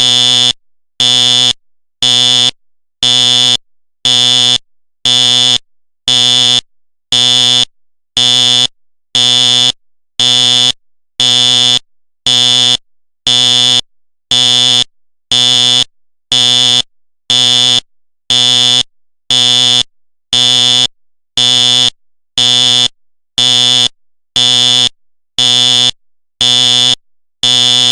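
Simplex fire alarm sounding in code pulse mode: short, loud buzzing blasts, about one a second, evenly spaced and unchanging.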